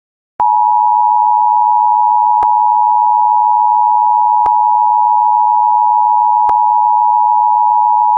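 Emergency alert attention tone: a loud, steady, unbroken electronic tone near 1 kHz that starts about half a second in and holds, with a faint click about every two seconds. It is the signal that an emergency alert message is about to be read.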